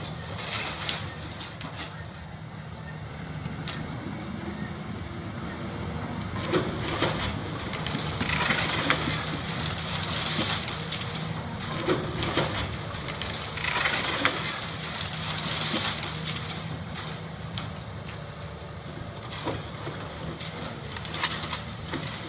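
Caterpillar hydraulic excavator's diesel engine running steadily while its bucket breaks up a tiled roof and brick walls. Roof tiles, timber and masonry crash and clatter down in several bursts through the middle, with sharp knocks now and then.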